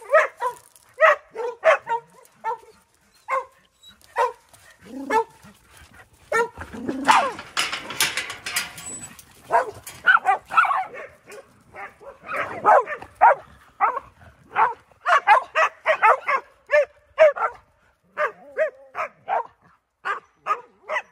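Dogs barking in quick runs of short barks, over and over. About six and a half seconds in, a couple of seconds of rushing noise.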